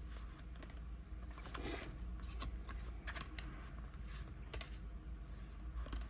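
A stack of Pokémon trading cards being handled, the cards rustling and sliding against one another with scattered light clicks.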